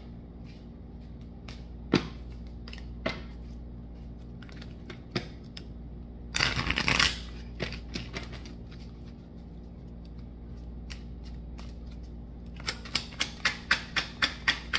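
A small deck of cards being shuffled by hand: scattered flicks and taps, a brief dense rush of card noise about six seconds in, then a quick even run of card snaps near the end, about five a second.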